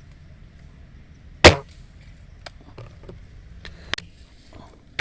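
An airsoft gun fires one loud, sharp shot about a second and a half in, followed by several fainter clicks and snaps, the loudest of these near the four-second mark.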